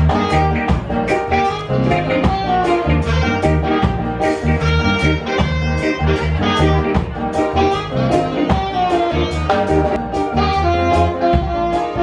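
Live band playing jazz: a saxophone carries held melody notes over a steady drum-kit beat, electric bass and electric guitar.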